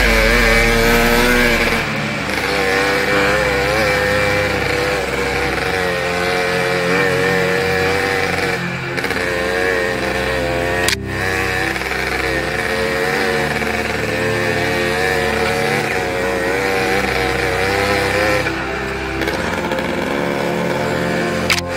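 Dirt-bike engine of a snowbike running at varying revs while being ridden, its pitch rising and falling. A sharp click about halfway through.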